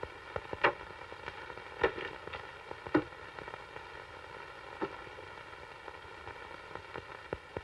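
Bundles of paper banknotes handled on a wooden desk: a few soft taps and paper rustles as the stacks are picked up and set down, spread over the first five seconds, over a steady film-soundtrack hiss.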